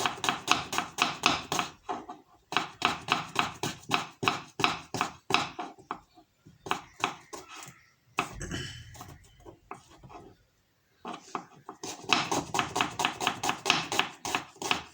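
Kitchen knife slicing an onion against a cutting board: quick, regular chops at about four to five a second, in runs with short pauses. There is a muffled knock with some handling noise partway through and a brief stop about ten seconds in, before fast chopping resumes.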